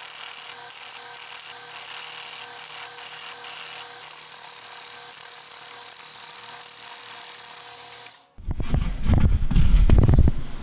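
Drill press spinning a plywood disc while a chisel shaves its edge: a steady motor hum with a fixed tone under a continuous scraping of steel on wood. About eight seconds in the scraping cuts off and is followed by a much louder, rough machine rumble with irregular knocking.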